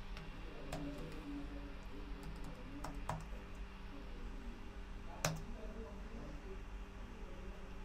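Computer keyboard keystrokes: a few sparse clicks as a short command is typed, with the loudest click about five seconds in as the Enter key is pressed. A faint steady hum lies underneath.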